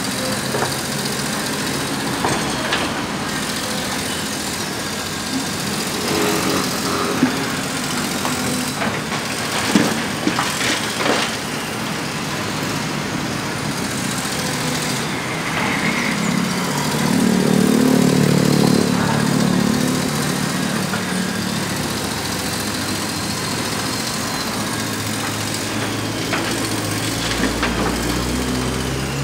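Komatsu PC200 excavator's diesel engine running steadily as it digs. It rises to a heavier, louder note for a few seconds past the middle as the machine works under load. A few sharp knocks in the first half come from the bucket striking rubble in the trench.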